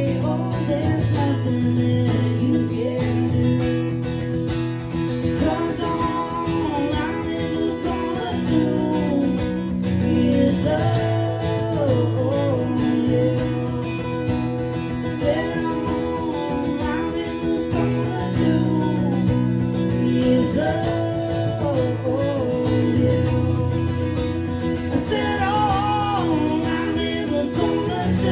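Live acoustic country music: steady acoustic guitar chords with a gliding wordless melody line over them, an instrumental stretch of the song.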